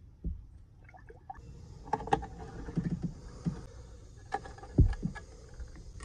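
Motor oil pouring from a bottle through a funnel into an engine's oil fill, a steady liquid hiss with gurgling. A few knocks and taps of the bottle and funnel are mixed in, the loudest a thump about five seconds in.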